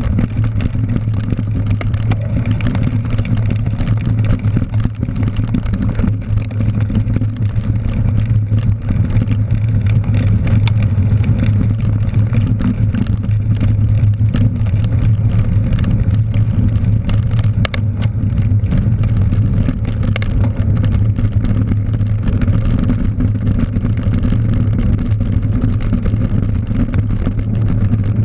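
Cyclocross bike at race speed heard from a GoPro mounted on the bike: a steady, loud wind rumble on the camera housing over the rolling noise of knobby tyres on dry dirt and gravel, with scattered small clicks and rattles from the bike over bumps.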